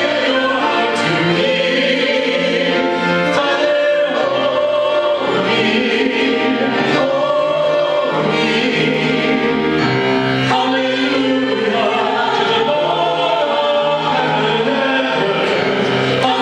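A choir singing with instrumental accompaniment, in long held notes that change every second or two.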